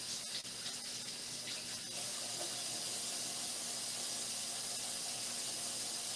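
Steady rush of a running kitchen tap, with a few faint clicks and knocks in the first two seconds as hot boiled potatoes are handled and peeled.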